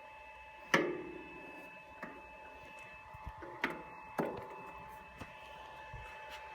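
About five sharp knocks of metal parts being handled on the lathe, the loudest about a second in with a short ring after it, over a steady faint high whine.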